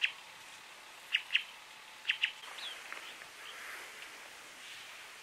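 Birds calling: short, sharp chirps, some in quick pairs, about one every second, with a couple of down-slurred notes near the middle.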